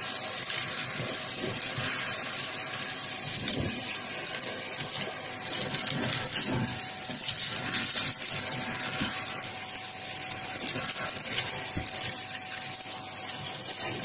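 Shark vacuum cleaner running steadily, sucking up fluff, popcorn kernels and craft bits from carpet, with a steady rushing of air over a faint motor whine and scattered short clicks as debris rattles up the nozzle.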